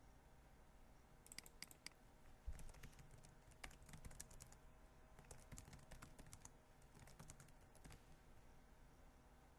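Faint typing on a computer keyboard: irregular runs of key clicks starting about a second in and stopping near the end.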